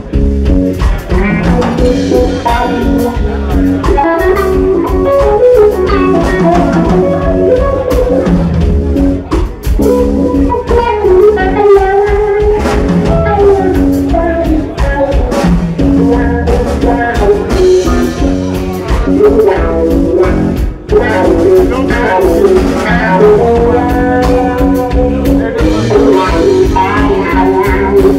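A rock band playing live and loud: an electric guitar line with bending notes over bass guitar and a drum kit.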